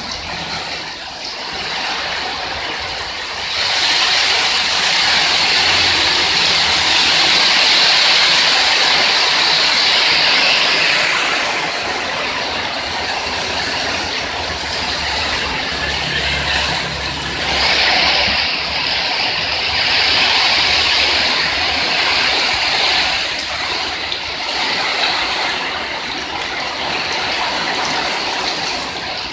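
Heavy rain pouring down as a dense, steady hiss. It grows louder about four seconds in, eases off, and swells again about eighteen seconds in.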